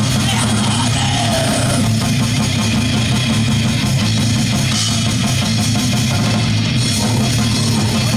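Heavy rock band playing at full volume: distorted electric guitars over a drum kit.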